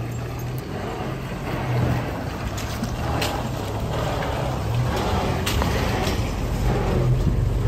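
An old Toyota pickup and a stock Chevy Trax creeping through a shallow, rocky creek: engines running low and steady, tyres going over wet stones, and a few sharp knocks about three and five and a half seconds in.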